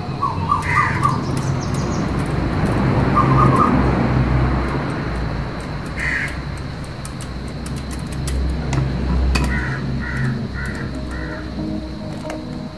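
A bird calling outdoors in short calls: a few near the start, one around the middle and a run of four evenly spaced calls later on, over steady background music.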